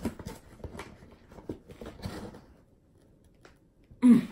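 Scissors snipping and scraping at a cardboard box's tape and packaging, with scattered clicks and rustles, then a brief lull. A short vocal sound comes near the end.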